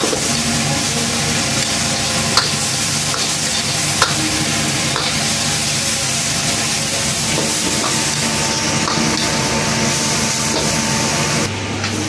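Vegetables and meat sizzling in a hot wok as they are stir-fried with a metal ladle. The ladle knocks sharply against the wok twice, a couple of seconds in and again about four seconds in.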